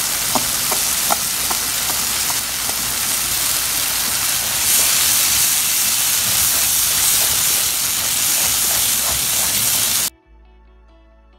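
Onions, garlic and tomato paste sizzling in hot oil in a frying pan as they are stirred with a wooden spoon, with light clicks in the first few seconds. The sizzle stops abruptly at about ten seconds and soft background music follows.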